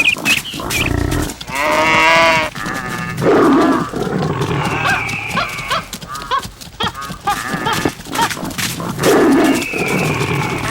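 Animal stampede sound effect: many animal calls overlapping, rising and falling in pitch, over a steady run of sharp knocks like hoofbeats.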